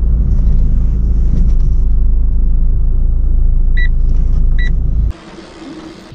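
Inside a moving car: a steady low engine and road rumble, with two short high beeps less than a second apart. About five seconds in it cuts off suddenly, giving way to quieter, even outdoor noise.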